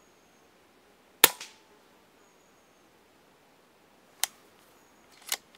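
A Daystate Red Wolf PCP air rifle shot fired at a squirrel on a feeder: a single sharp crack about a second in, with a fainter second crack just after it. Two shorter sharp clicks follow near the end.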